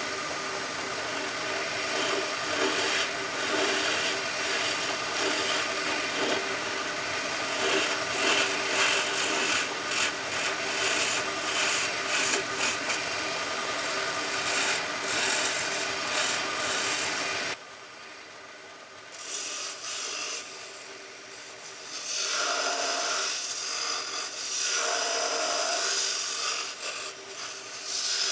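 A wood lathe runs while the sharpened, beveled end of a steel vacuum cleaner extension wand shaves a spinning wooden bead into a sphere: a steady, dense scraping hiss. The hiss cuts off abruptly a little past halfway and comes back in stretches near the end.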